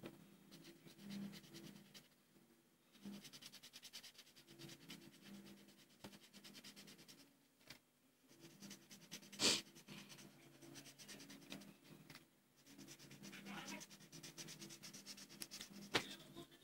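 Felt-tip marker scratching on paper in quick back-and-forth strokes as it colours in an area, in two spells of rapid rubbing. A single sharp knock about halfway through.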